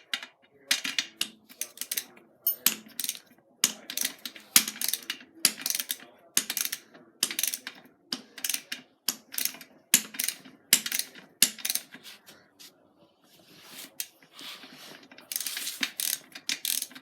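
Ratchet wrench clicking in quick repeated strokes as the BMX's rear axle nuts are tightened to hold the chain tension, with a short lull a little after the middle.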